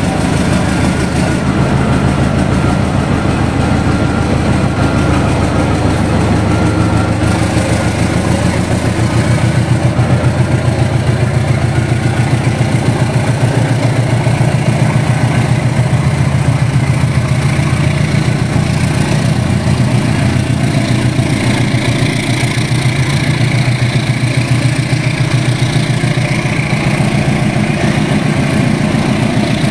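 GE diesel-electric locomotive engine running steadily, a low, evenly pulsing engine note, a little louder for a few seconds in the middle.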